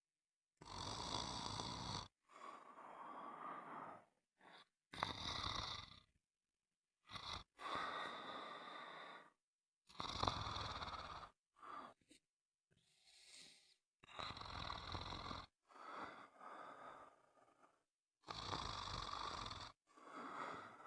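Snoring: a run of about a dozen noisy breaths, each one to two seconds long, separated by short, completely silent gaps.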